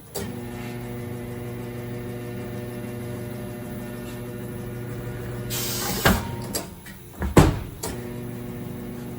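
Tire changing machine mounting a tire: its electric motor hums steadily as the turntable turns. Around the middle come a short hiss of compressed air and a few sharp clunks, then the motor hum resumes.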